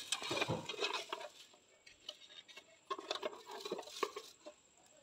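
A dry mix of cumin and fennel seeds, sugar and henna leaves being pushed by hand into a steel tin around a small bowl: seeds patter and rustle against the metal in two spells of crackling, the first at the start and the second about three seconds in.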